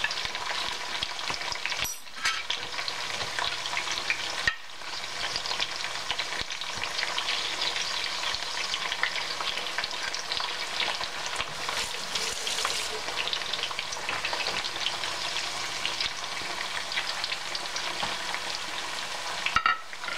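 Sweet potato wedges frying in shallow oil in a stainless steel pan, a steady fine sizzle and crackle of spattering oil.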